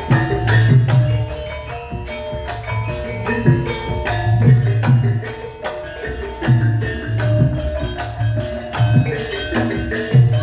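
Javanese gamelan music accompanying a lengger dance: struck metallophones ringing out melodic notes over frequent deep drum strokes.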